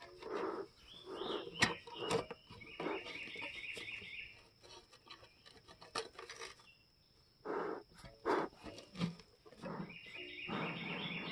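Bee smoker bellows squeezed in repeated short puffs of air, fanning the smouldering leaves and pine needles to keep the fire from going out, with a few sharp metal clicks from the smoker. A bird trills in the background.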